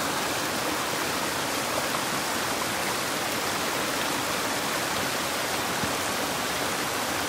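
Mountain stream rushing steadily over boulders and small cascades, a constant hiss of water.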